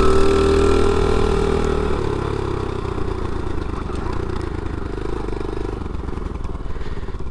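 Engine of a 50cc pit bike running: a steady held pitch for about two seconds, then dropping to a rougher, uneven low running sound.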